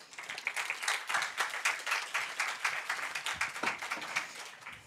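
Audience applauding at the end of a talk: many hands clapping together, thinning out and fading away near the end.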